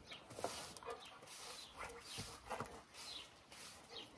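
Push broom sweeping dust and debris across a concrete patio, a bristly scrape with each stroke, repeated about once a second.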